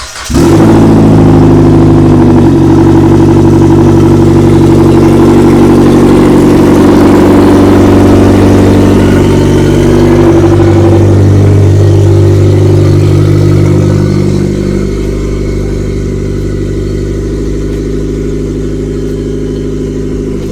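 Turbocharged Mitsubishi 4B11 2.0-litre inline-four catching just after the start and idling steadily, a little quieter from about two-thirds of the way through. A smooth, even idle after the bolt-on turbo install, which the owner judges pretty good.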